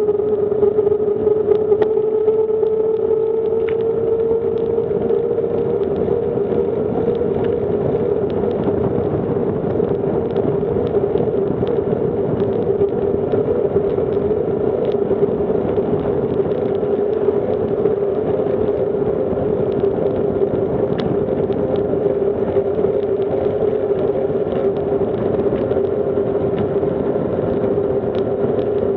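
Bicycle rolling fast on an asphalt road: a steady hum that rises slightly in pitch over the first few seconds, over a continuous rushing noise, with occasional light ticks.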